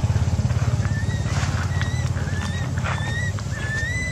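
Baby macaque giving a string of short, high-pitched cries, each rising slightly, starting about a second in. A small engine idles underneath with a steady low putter.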